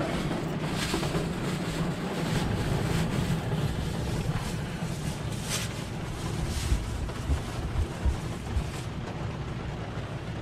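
A pickup truck's engine running steadily, heard from inside the cab, under a steady rushing noise with a few brief knocks.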